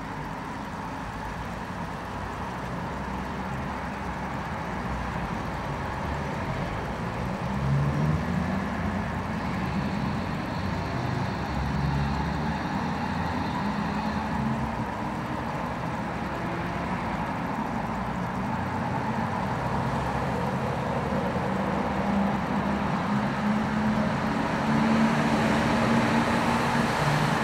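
Steady road traffic noise with vehicle engines passing, growing gradually louder.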